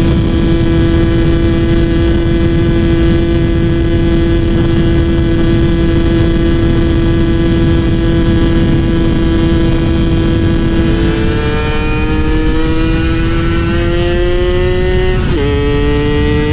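Two-stroke motorcycle engine running at high, steady revs while being ridden. About eleven seconds in, the pitch drops as it shifts up, climbs again for a few seconds, then drops sharply on a second upshift near the end.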